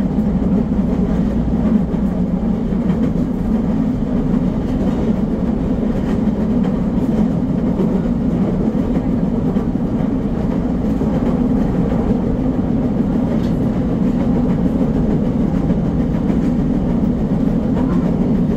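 Nagoya Municipal Subway Higashiyama Line train running at speed on elevated track, heard from inside the front car. There is steady wheel-on-rail running noise, with a few faint clicks from the track.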